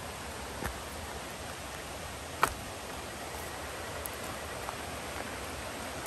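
Steady rushing of flowing water, an even hiss, with a couple of short sharp taps, the loudest about two and a half seconds in.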